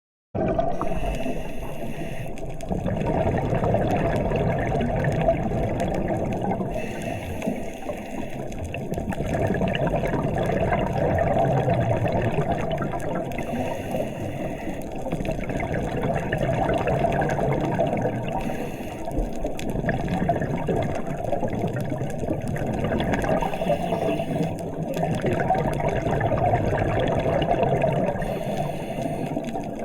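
Muffled underwater water noise with a diver's scuba breathing and exhaled regulator bubbles, swelling and fading every five or six seconds.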